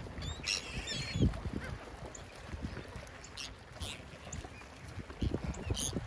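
Gulls calling in short cries: a quick run of several calls about a second in, then single cries a few times later. Under them is a low, uneven rumble.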